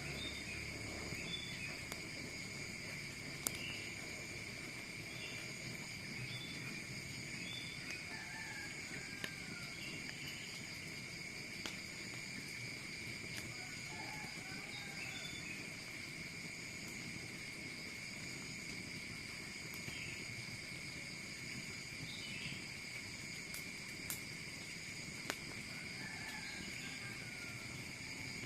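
Steady insect chorus, crickets holding several unbroken high trilling tones, with scattered short chirping calls over a low rushing noise. A few sharp clicks break through, one strongly about three and a half seconds in.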